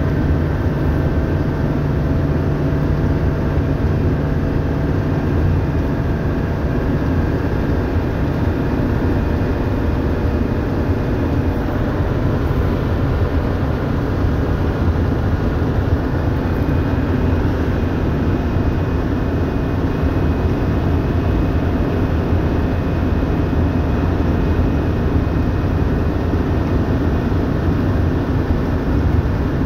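Toyota Coaster bus under way: a steady engine drone with road noise.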